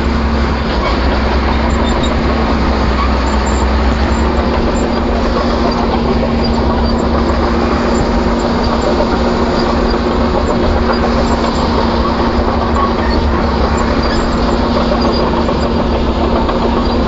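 Excavator's diesel engine running steadily with a constant hum and heavy low rumble as the machine travels.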